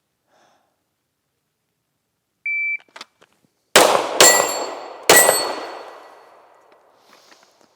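A shot timer's short electronic start beep, then three gunshots a little under a second apart. Each shot is followed by a ringing metallic tone, typical of steel targets being hit, which fades over a second or two.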